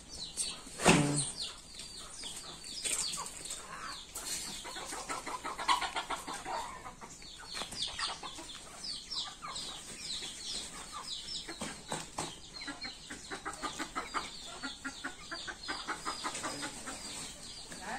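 A flock of free-ranging chickens and roosters clucking, with many short high chirps throughout. A louder knock comes about a second in.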